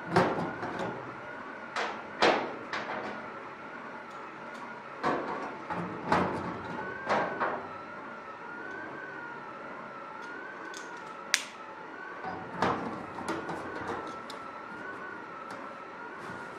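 Clecos being set with cleco pliers into rivet holes around an aluminium inspection cover: irregular sharp metallic clicks and snaps, one very sharp click about 11 seconds in. A faint wavering high hum runs underneath.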